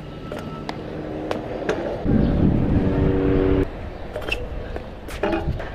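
Pro scooter wheels rolling on the court surface, with sharp clicks and knocks from the deck and pegs as the rider hops on and off. A louder rolling hum lasts about a second and a half in the middle.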